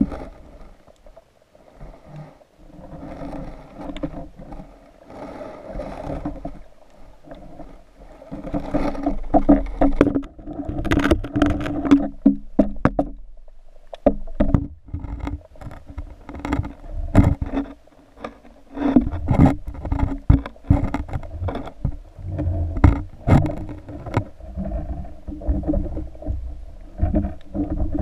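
Muffled water sloshing and splashing just under the surface, heard through an underwater camera housing. Many sharp clicks and knocks come in from about nine seconds in, with a short lull a few seconds later.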